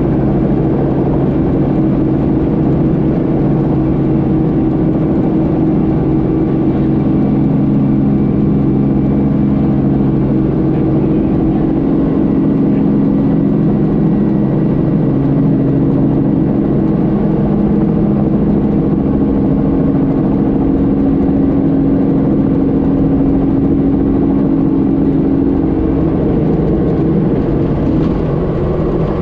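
Helicopter engine and rotor noise heard from inside the cockpit, a steady hum with several held tones as it hover-taxis low over the airport apron. The tone changes a few seconds before the end.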